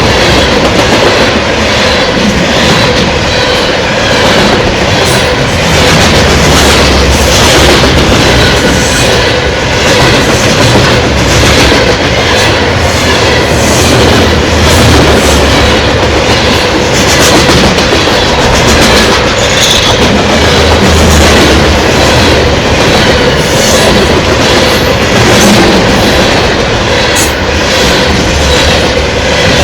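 Loaded CSX Herzog ballast train's cars rolling past at close range, the wheels clicking over rail joints in a steady repeating clickety-clack over loud rolling rumble. A steady high hum runs underneath throughout.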